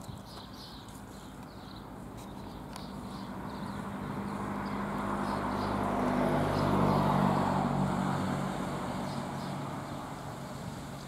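A car driving past on the road, its engine and tyre noise swelling over several seconds, loudest about seven seconds in, then fading away.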